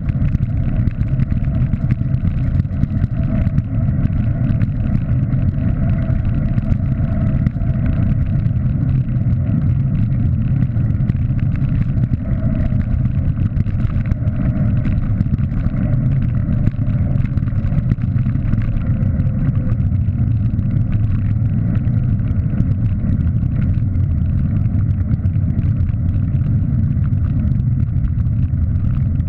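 Wind buffeting the microphone of a bike-mounted camera riding along a paved road: a loud, steady low rumble with no breaks.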